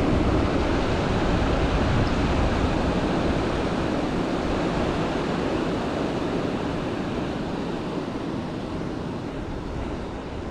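Steady rush of mountain-creek rapids and a small waterfall, slowly fading out near the end.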